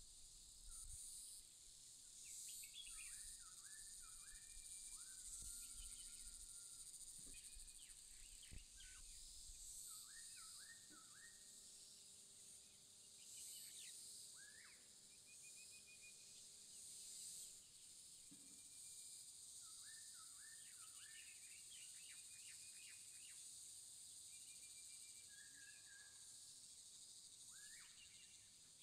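Faint rural ambience: a songbird repeats a short phrase of three or four quick looping whistles three times, several seconds apart, with other brief bird chirps in between, over a steady high hiss of insects.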